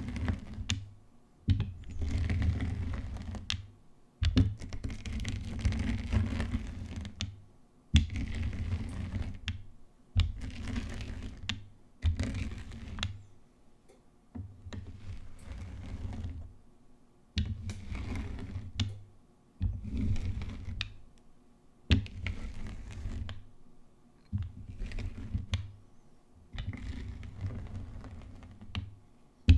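Gym chalk being rolled and crushed in repeated passes about every two seconds, each pass a rumbling crunch with sharp clicks and small pops as the chalk breaks.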